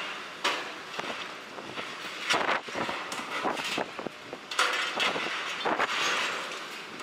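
Irregular metallic clanking, creaking and screeching as a tracked excavator's hydraulic jaws crush and cut the steel lattice jib of an old dockside crane, in separate bursts several times over a steady background hiss.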